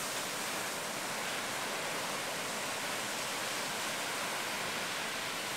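Ocean surf breaking on a beach, heard as a steady, even hiss of white water with no separate wave crashes standing out.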